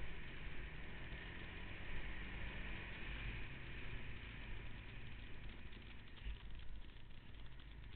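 Off-road vehicle engine running steadily, with a rushing noise over it.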